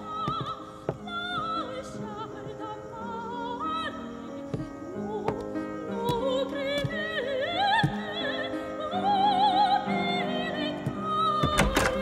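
A woman singing in an operatic style with strong vibrato, accompanied by piano. It grows louder over the last few seconds, and just before the end there is a thump as a heavy wooden door is pushed open.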